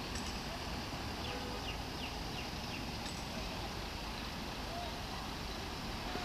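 A steady, even rumbling noise, with a few faint high chirps between about one and three seconds in.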